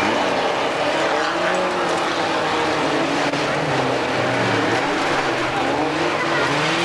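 Several race-car engines running hard together as a pack of old saloons and hatchbacks races on a dirt track, their pitches rising and falling against each other as the drivers rev and lift.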